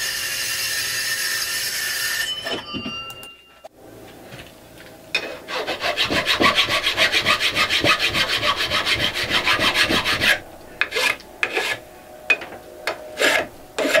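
A circular saw blade running through aluminum Maker Slide extrusion, stopping about two seconds in. From about five seconds in, a hand metal file rasps across the aluminum extrusion clamped in a vise to clean it up. The strokes come fast and even at first, then slow to separate single strokes near the end.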